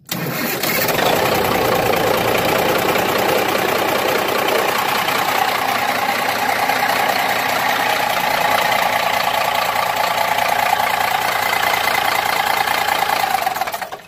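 Cummins diesel engine of an M939-series 5-ton military truck starting, with the power control box bypassed and the starter jumped, then running steadily. The sound cuts off suddenly near the end.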